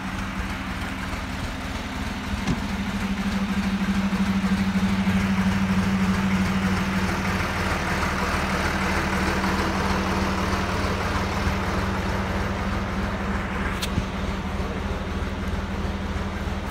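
Vehicle engine running with a steady hum, louder and rougher from about three seconds in.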